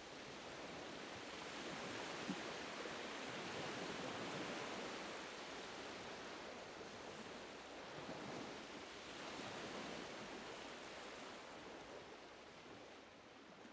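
Faint ocean waves washing ashore, a soft hiss that swells and eases slowly a few times and fades out near the end.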